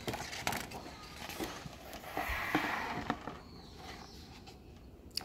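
A page of a large hardcover picture book being turned by hand: paper rustling and sliding with a few light taps, loudest about two seconds in.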